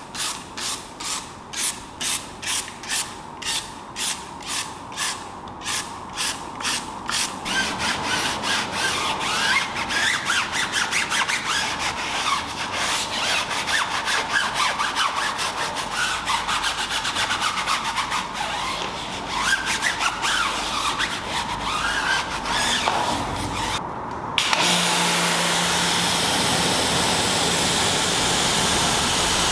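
Hand trigger sprayer squirting foaming tyre cleaner onto a tyre, about two pumps a second. Then a brush scrubs the rubber sidewall. Near the end a pressure washer starts spraying, a loud steady hiss over its motor's hum.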